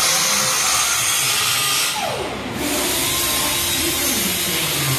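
Compressed-air gun with a long nozzle hissing steadily, easing briefly about two seconds in.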